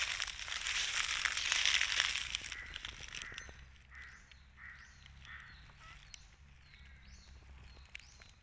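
Dry fallen leaves and grass crunching and rustling for the first two seconds or so. After that, a bird calls in a run of short repeated notes, a little more than one a second.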